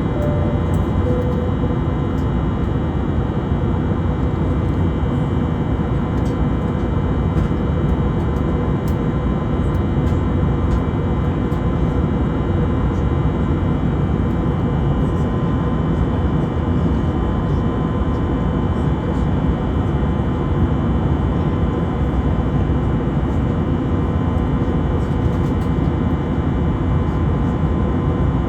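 Airbus A320neo's jet engines heard from inside the passenger cabin: a steady loud rumble and rush of air with several constant whining tones, unchanging throughout.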